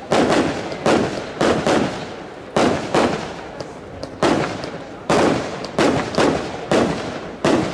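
Aerial firework shells bursting overhead in quick succession: about a dozen sharp bangs at irregular intervals, each trailing off in an echo.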